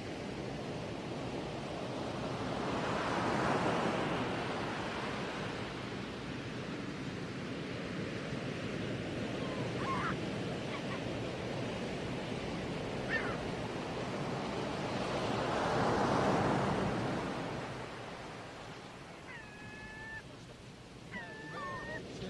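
Waves washing on a rocky shore, swelling up and falling back twice. Near the end, a few short high calls come through.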